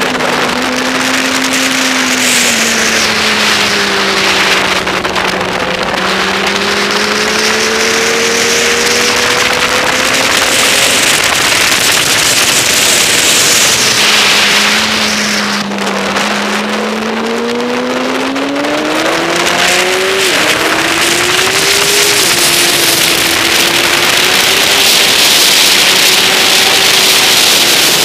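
Sport motorcycle engine heard on board at speed under heavy wind rush on the microphone. Its note sinks over the first few seconds, holds low, then climbs steadily about halfway through as the throttle opens and stays higher to the end.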